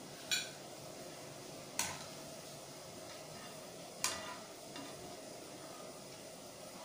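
Gulab jamun balls frying in hot oil with a faint steady sizzle, and a wire spider strainer clinking sharply three times against metal.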